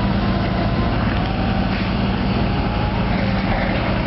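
Steady drone of a heavy machine's engine running at a constant speed, with a low hum throughout and no change.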